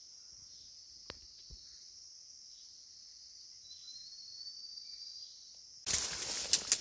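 Steady high-pitched chorus of forest insects. Near the end a sudden loud rustling and crackling starts.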